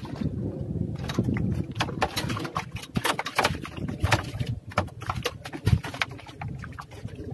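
Water splashing and rustling among water hyacinth: a dense run of irregular sharp splashes and crackles that starts about a second in.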